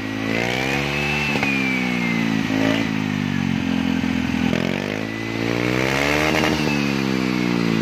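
Vespa Primavera's four-stroke single-cylinder engine revved up and back down twice through a hollowed-out aftermarket silencer, the exhaust note climbing to a peak about a second in and again around six seconds in. A thin whine rises and falls with the revs.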